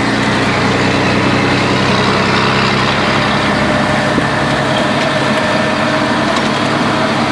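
Scania 112 truck's diesel engine, fitted with a modified engine brake, running steadily at a held speed with a loud, even exhaust note. The deepest part of the sound thins out a little over halfway through.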